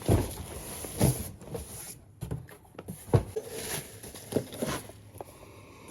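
Packaged phone accessories being handled and sorted by hand: rustling of packaging with irregular knocks and clatters, the loudest about a second in and about three seconds in.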